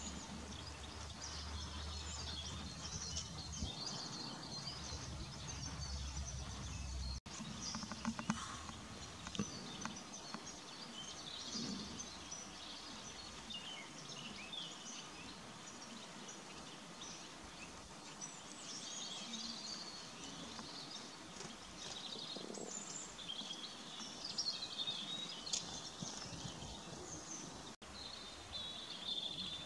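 Small songbirds chirping and calling over steady outdoor background noise, with short high notes scattered throughout. A low rumble runs under them for the first several seconds.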